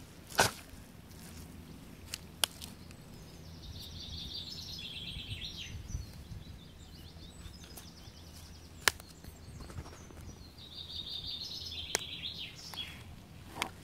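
Steps in wellington boots through sticky woodland mud and sticks, with a few sharp cracks underfoot, the loudest coming about half a second in and near nine seconds. A songbird sings two short, rapid trilled phrases that fall in pitch, one in the first half and one near the end, over a steady low background rumble.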